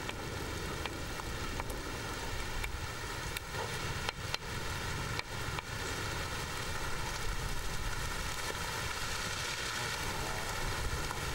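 A hand-held stone grinding green plants into a paste on a flat stone slab: a steady rough scraping with scattered light knocks, as the herbal ointment is being prepared.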